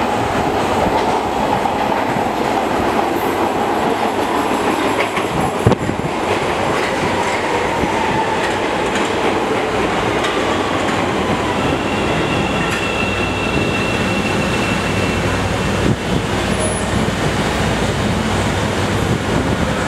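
Chicago 'L' Red Line train of Bombardier 5000-series cars pulling into an underground subway station, its wheels rumbling and clattering on the rails. There is a sharp click about six seconds in, and a thin high squeal for a few seconds past the middle as it slows to a stop.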